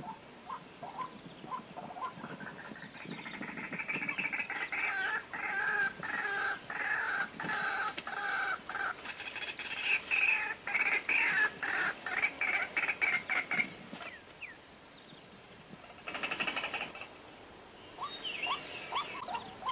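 White-breasted waterhen calling: a long run of rapid, harsh repeated notes that builds up, grows loudest and then stops, followed by a shorter burst of the same calls.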